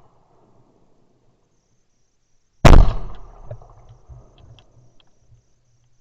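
A single shotgun shot a little before halfway through, its report echoing and dying away over a couple of seconds.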